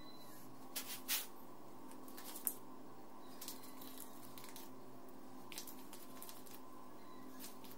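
Faint handling sounds from setting loose steel bearing balls into the greased steering-head bearing cup of a motorcycle frame and handling a small plastic bag. A few short clicks and rustles, the sharpest about two and a half seconds in, sound over a steady low hum.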